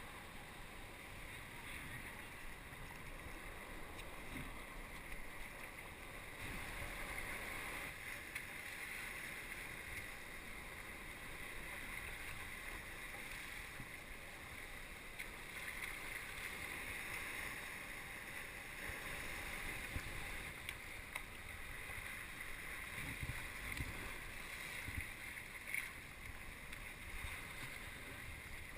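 Water lapping and splashing around a sea kayak as it is paddled, with wind gusting on the microphone.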